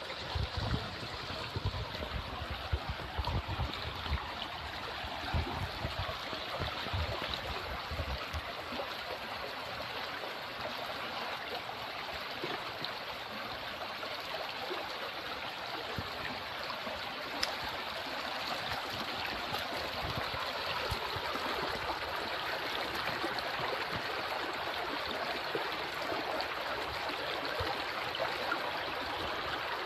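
River water running steadily, a constant rushing stream sound. There are low bumps during roughly the first eight seconds.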